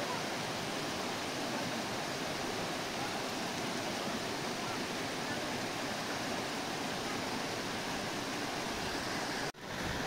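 Shallow mountain river rushing steadily over rocks and a small cascade, an even hiss of running water. It cuts out for an instant near the end.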